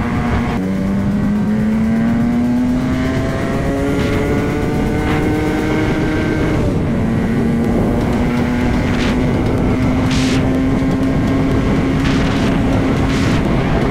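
Motorcycle engine under way, its pitch climbing steadily as the bike gathers speed. It drops twice as the rider shifts up, once about half a second in and again near the middle, over a constant rush of wind and road noise.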